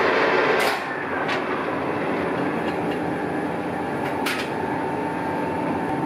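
Colchester Triumph 2000 lathe turning a long shaft, the cutting tool chattering against the work with a steady ringing tone that stops about a second in. The lathe runs on after that, with a few sharp clicks.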